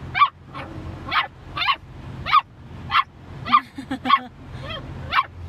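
Mountain Cur puppy barking in short, high yips, about ten of them at roughly two a second, over a steady low engine hum from the vehicle.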